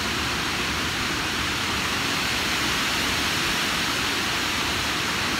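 Water pouring over a reservoir dam's overflow weir and rushing down a stepped concrete spillway: a steady, even rush of white water.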